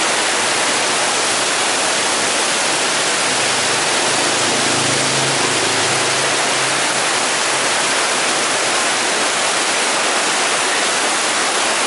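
Heavy tropical downpour: a loud, steady hiss of rain pouring onto the street and running water. A faint low hum rises under it a few seconds in and fades.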